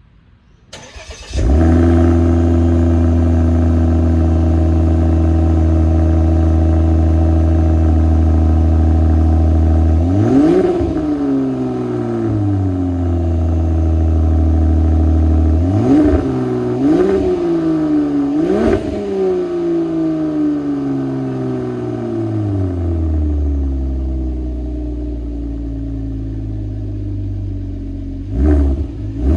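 Volvo S60 T6 engine through an IPD downpipe and custom cat-back sport exhaust: it starts up about a second in and runs at a steady high idle, then takes four quick throttle blips, each a sharp rise and fall in pitch. It then settles to a lower idle, with one more short blip near the end.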